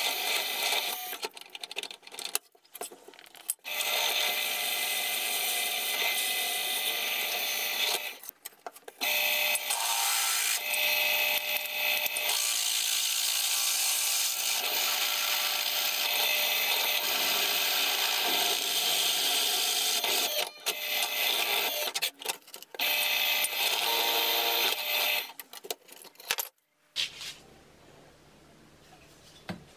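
Drill press boring a hole through a hatchet head's steel eye into the cast aluminium handle inside it: a steady harsh cutting noise that stops briefly a few times and cuts off near the end.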